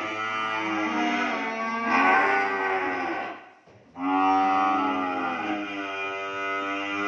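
Cattle mooing: two long, drawn-out moos, the second starting about four seconds in after a brief drop in sound.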